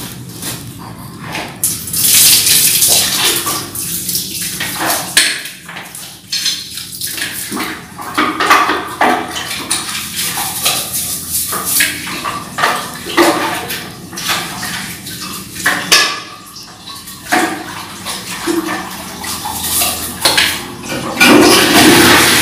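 A toilet and tiled bathroom floor being scrubbed with a stiff brush and water: irregular scraping and splashing with small knocks and clatters. Near the end a louder, steady rushing sound sets in.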